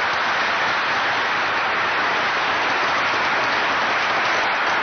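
Audience applauding steadily, a dense even clapping that fills the pause in the speech.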